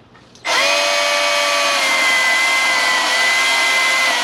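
Milwaukee M18 16-inch cordless electric chainsaw starting about half a second in and running steadily at high speed with a high whine, its pitch sagging a little as it cuts into a tree limb.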